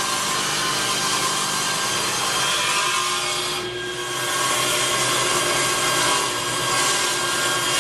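Table saw running and cutting through a hardwood butcher-block slab, steady and loud, with a brief dip a little before halfway through before the cutting noise comes back.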